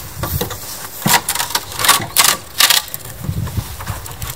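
Old weathered wooden planks knocking and clattering as they are pushed and pulled by hand, with a handful of sharp clacks in the middle.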